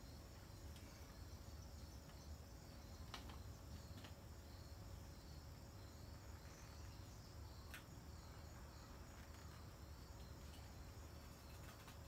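Near silence outdoors: faint, steady chirping of insects with an evenly repeating high pulse, broken by a couple of soft clicks.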